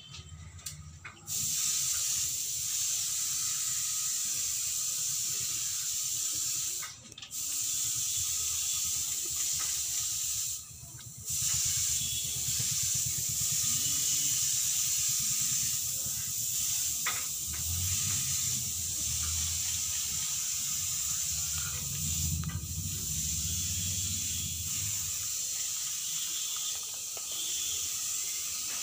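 Steady hiss with a low hum underneath. The hum swells for a few seconds past the middle, and the sound cuts out briefly a few times early on.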